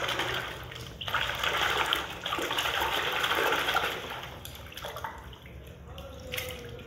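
A hand churning and splashing water in a large plastic tub. The sloshing is loud from about a second in until about four seconds, then turns to lighter splashes as water falls back into the tub.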